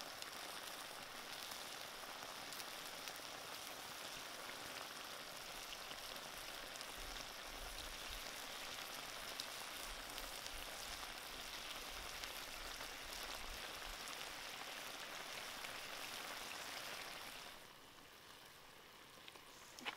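Curry sauce boiling hard in a cast-iron wok, a steady bubbling fizz with fine crackles. It drops to a quieter hiss about two seconds before the end.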